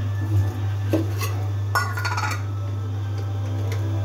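Metal kitchen utensils and dishes clinking and knocking a few times, with a longer ringing clink about two seconds in, over a steady low hum.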